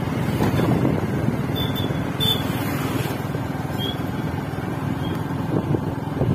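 Steady rumble of wind and road noise from a moving vehicle, with its engine running under it.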